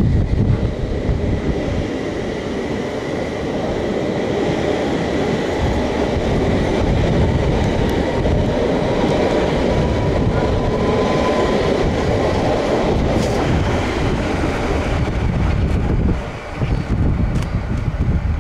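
London Underground S8 stock train departing and running past the platform: continuous rumble of wheels on rail with clickety-clack over the joints and a thin whine, easing briefly near the end as the last car goes by.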